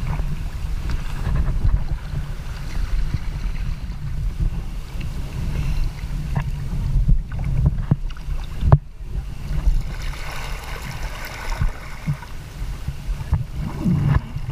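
Paddle strokes and water splashing around a Prijon Seayak 500 LV sea kayak on the open sea, with wind rumbling on the action camera's microphone. A sharp knock comes about nine seconds in.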